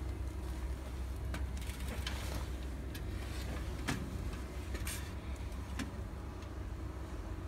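Steady low hum of workshop machinery with a faint steady tone above it, broken by a few scattered light clicks and taps.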